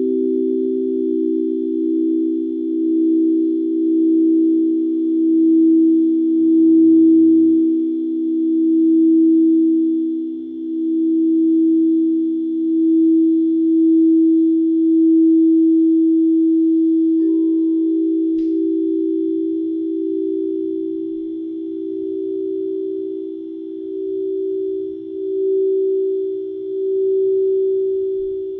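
Singing bowls ringing in long sustained tones, several close pitches pulsing slowly against one another. About two-thirds of the way through, a higher bowl tone comes in more strongly.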